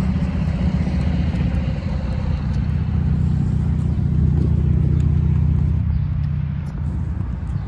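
A motor vehicle's engine running nearby as a steady low hum, dropping away about a second before the end.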